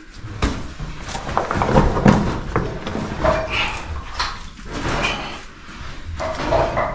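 A person crawling through a wet, muddy, low cave passage: irregular scraping, shuffling and knocks of body and gear against mud and rock, close to the microphone.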